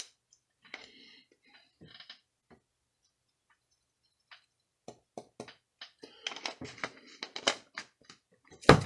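Lemon pepper shaker being shaken and handled over a glass mixing bowl: scattered faint clicks and taps, thickening about five seconds in, then a sharp knock near the end that sounds like someone knocking at a door.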